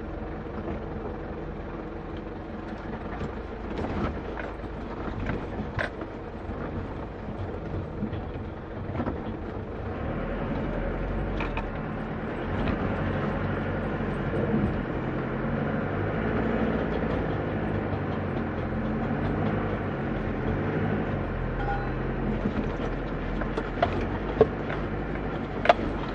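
Isuzu KB 300 TDI's four-cylinder turbodiesel running under load inside the cab as the bakkie crawls over an off-road obstacle, getting louder about ten seconds in. Scattered knocks and clicks from the body and suspension, with a few sharp knocks near the end.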